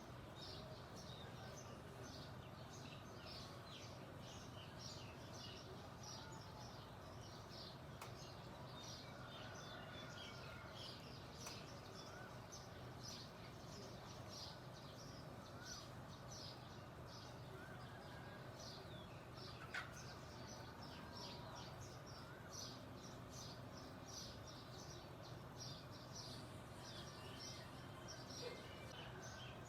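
A chorus of small songbirds chirping, a dense run of short, rapid high chirps with a few lower whistled notes mixed in, over a faint steady low background noise.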